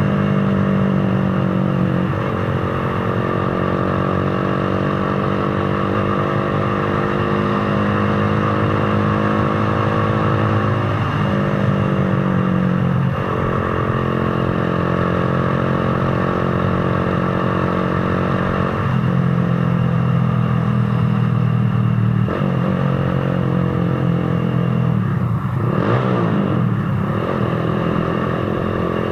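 Z200 motorcycle engine running under way, its pitch climbing slowly and then dropping sharply at each gear change, about six times, with wind and road noise underneath.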